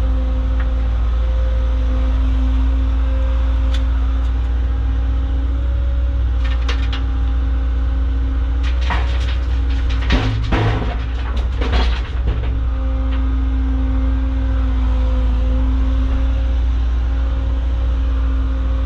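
Caterpillar excavator's diesel engine running steadily under load, heard from inside the cab with a steady whine over the rumble. A burst of knocks and scraping from the bucket working rock and dirt comes about nine to twelve seconds in.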